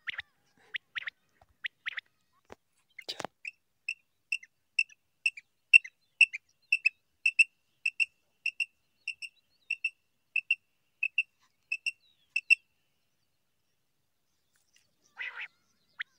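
Quail calling: a long run of short, high, evenly spaced piping notes, a little over two a second, for about eight seconds, after a few scattered chirps. A short rasping call comes near the end.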